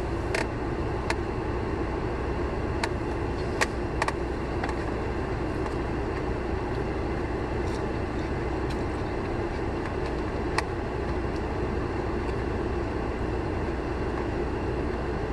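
Steady low hum inside a car cabin, with a few light clicks and taps of a plastic fork against a takeout food container.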